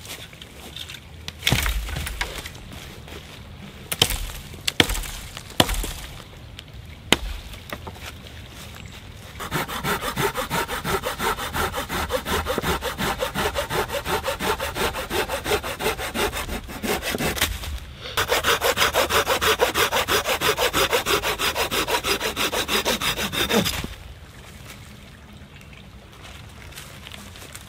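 Silky folding hand saw cutting through a dead branch with rapid back-and-forth strokes, in two bouts: the first starts about ten seconds in, and after a brief pause a louder one stops about 24 seconds in. A few sharp wooden knocks come before the sawing.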